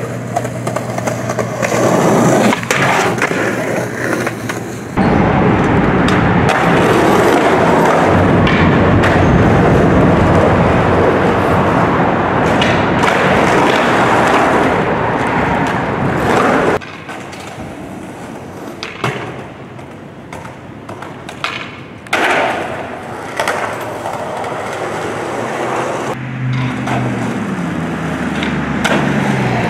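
Skateboard wheels rolling loudly over concrete, with sharp clacks and knocks of the board hitting the ground at several points. Near the end a low hum comes in.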